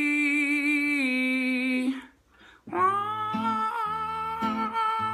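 A singer holds one long note for about two seconds, stepping down in pitch about a second in, then after a short pause an acoustic guitar comes in with picked low notes under a sustained chord.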